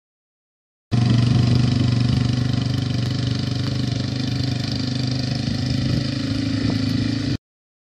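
Quad bike (ATV) engine running steadily while it tows a spring tine harrow across a sand arena surface. The sound cuts in abruptly about a second in and stops abruptly near the end.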